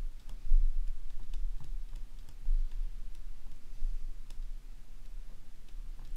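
A pen stylus tapping and clicking on a drawing tablet as formulas are handwritten, in light, irregular clicks over a steady low hum.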